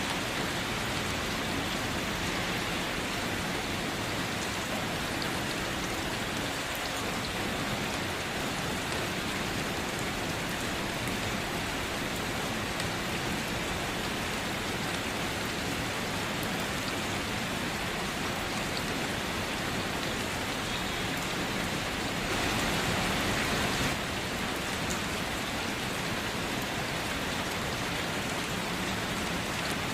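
Steady rain falling and pattering on surfaces, an even hiss with no breaks; it swells a little louder for a second or two about three-quarters of the way through.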